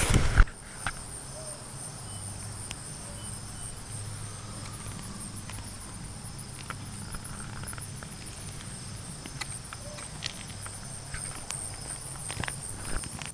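Steady high-pitched insect chirring, with a faint low hum underneath and a few scattered faint clicks.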